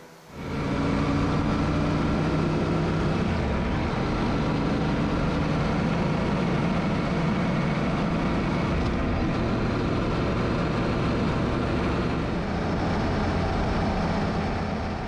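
Yamaha Ténéré motorcycle riding at steady road speed: an even engine note under rushing wind and road noise, cutting in abruptly about half a second in.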